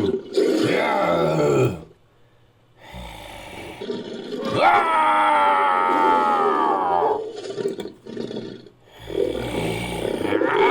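Creature sound effects: a series of monster roars and growls, the longest a held, slowly falling roar about halfway through, with another starting near the end.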